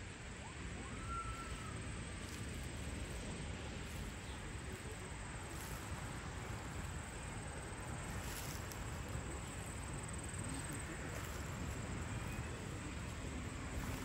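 Steady outdoor background noise by a pond: a low rumble and hiss, with a short faint high whistle about a second in.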